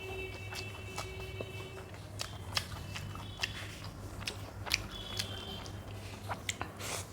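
Close-miked eating sounds: chewing and mouth smacks with scattered sharp clicks, over a steady low hum.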